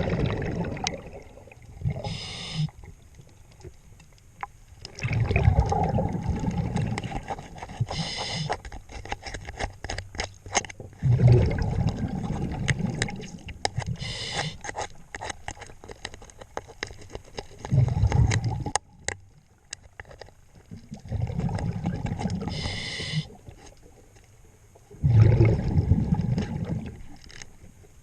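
Diver breathing through a scuba regulator underwater: about five breaths, each a loud bubbling exhale paired with a short hiss of inhale, every five to six seconds. Scattered sharp clicks and taps run throughout.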